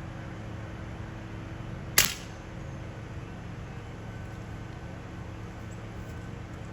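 One shot from a suppressed .25-calibre Beeman Commodore underlever PCP air rifle: a single sharp crack about two seconds in, dying away quickly over steady background noise.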